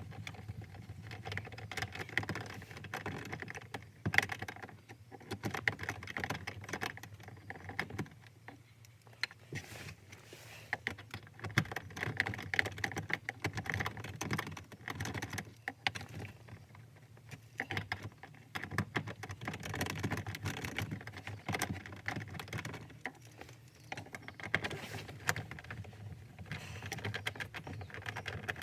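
Irregular light clicks and rattles from a socket wrench working the small bolts out of a Honda Odyssey's overhead console, with quieter gaps about a third of the way in and again near the end.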